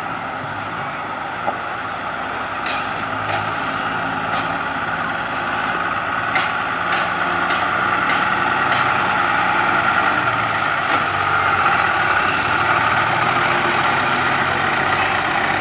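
Diesel engine of an old bonneted Isuzu truck running as the loaded truck drives slowly up, growing louder over the first half and then holding steady. A few sharp clicks or rattles sound in the first half.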